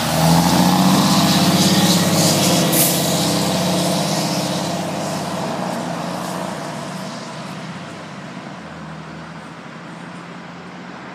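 2007 Spartan Gladiator/Crimson fire engine's diesel engine pulling away. It is loud as the truck passes and fades steadily as it drives off down the street.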